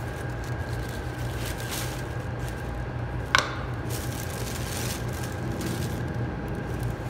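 Thin plastic sheet rustling as a raw patty is pressed and wrapped in it by gloved hands, over a steady machine hum. A single brief sharp sound about three seconds in.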